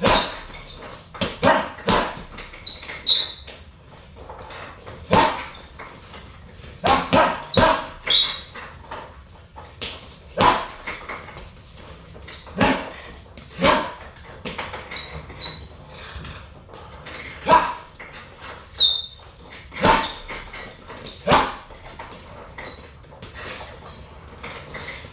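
Gloved punches landing on a hanging heavy bag: single blows and quick combinations of two to four, a second or several apart. A few short high squeaks come in between.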